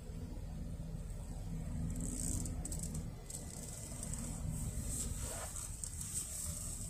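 Cabin noise of a Honda N-BOX kei car driving slowly: a steady low engine and road rumble, with short bursts of high hissing coming and going.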